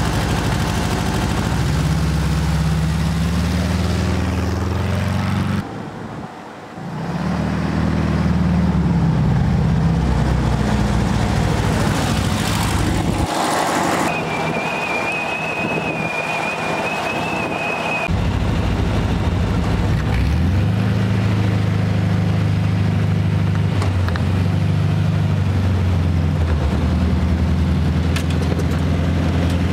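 Air-cooled 36-horsepower VW flat-four engine driving the buggy, its pitch rising and falling again and again as it accelerates and shifts through the gears. A thin high whine sounds for about four seconds near the middle.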